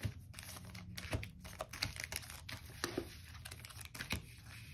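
Foil Pokémon booster-pack wrappers crinkling and tapping on a tabletop as the packs are handled and laid out one by one, in scattered short rustles and light taps.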